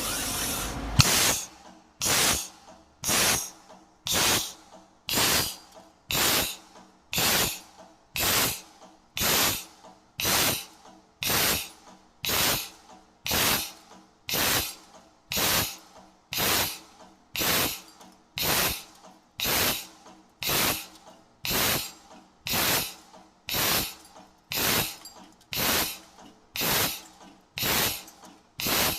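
CNC tube-punching machine cycling steadily at about one stroke a second, each stroke a short, sharp hiss like air exhausting from a valve, over a faint steady hum.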